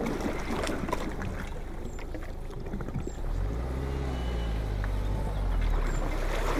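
Boat launch at a river ramp: a few light knocks as the aluminium boat floats off its trailer, then, about halfway through, a vehicle engine comes in and runs low and steady, the tow car getting ready to pull the empty trailer out of the water.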